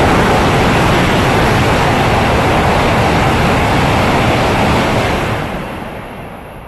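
A Shinkansen bullet train passing through the station at speed without stopping: a loud, steady rush of air and running noise. It holds for about five seconds, then fades away near the end.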